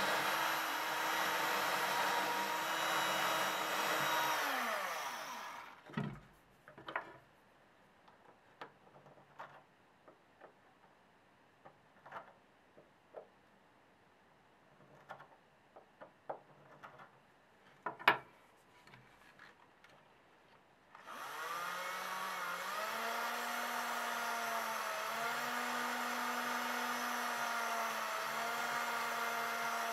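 Small electric drill with a thin bit drilling holes in a wooden button: it runs for about four seconds and winds down, then scattered small clicks and knocks as the drill is put down and the button handled, then the drill starts again about two-thirds through and runs steadily, its pitch dipping slightly now and then as it bites.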